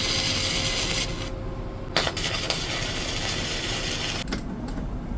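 Electric arc welder crackling in two long bursts that start and stop abruptly, welding a nut onto a seized bottom bracket so it can be wrenched out.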